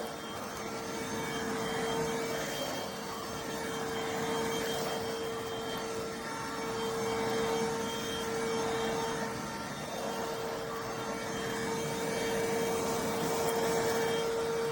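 Cordless stick vacuum cleaner (iwoly C150) running continuously, a steady motor whine over the rush of suction, its level swelling and easing a little.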